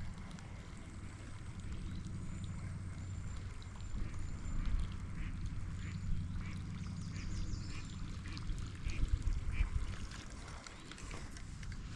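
Whopper Plopper topwater lure being retrieved across the surface, its spinning tail plopping and gurgling in short bursts over a steady low rumble.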